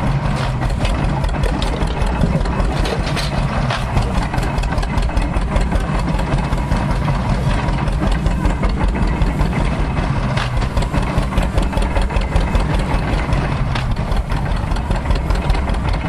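Tractor engine running at a steady speed, belt-driving an antique stationary straw baler, with a fast, even run of strokes.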